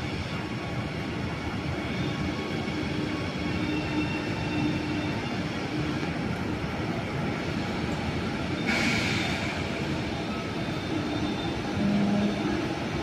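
ICE high-speed train rolling slowly along the platform as it pulls in, with a steady rumble and a short hiss of air about nine seconds in.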